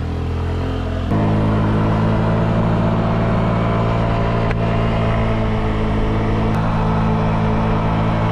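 A 49cc scooter engine under way: a steady engine drone that gets abruptly louder about a second in as the throttle opens, then holds steady at road speed.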